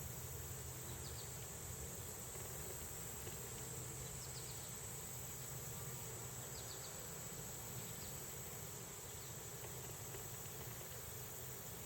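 Steady high-pitched chorus of insects, with a few faint short chirps now and then and a low steady hum beneath.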